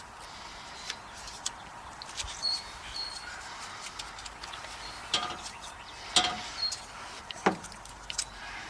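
Short, high bird chirps over a quiet outdoor background, with small handling clicks and a few brief squeaks that sweep downward in pitch.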